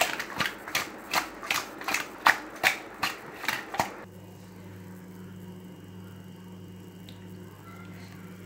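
A hand mixing raw river fish pieces with spice paste in a perforated steel bowl: a quick, even run of rubbing strokes, about three a second. They stop abruptly about four seconds in, and a steady low hum takes over.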